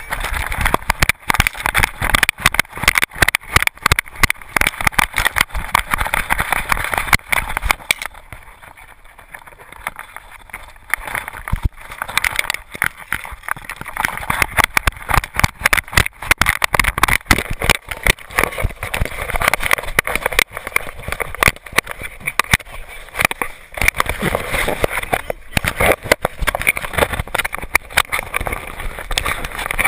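GoPro camera rattling and knocking in its loose mount on a whippet's back as the dog moves, a fast, irregular clatter with rubbing noise. It eases off for a few seconds about eight seconds in, then picks up again.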